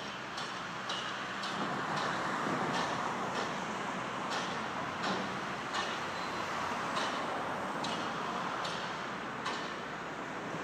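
Steady road traffic noise, with footsteps on the paving stones clicking at an even walking pace, a step every half second or so.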